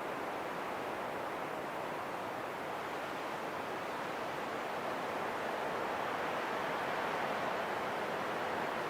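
Steady wind, an even whooshing rush with no distinct events, swelling slightly in the second half.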